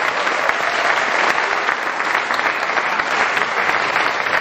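A room full of guests applauding steadily: many hands clapping at once, with no break.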